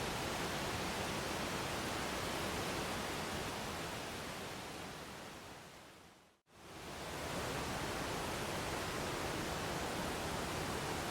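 Steady rushing water of a waterfall. It fades out to a moment of silence about six seconds in, then fades back up to the same steady rush.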